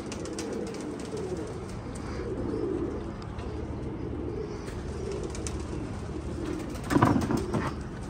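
Domestic pigeons cooing in their lofts, a continuous low burbling from many birds, with a brief louder clatter about seven seconds in.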